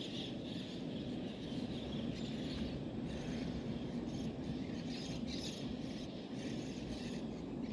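Outdoor ambience: birds chirping off and on over a steady low background noise.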